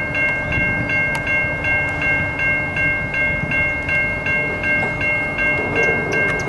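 Electronic grade-crossing bell ringing steadily, a repeating three-tone ding a little under three times a second, over the rumble of an approaching freight train led by an SD60 locomotive.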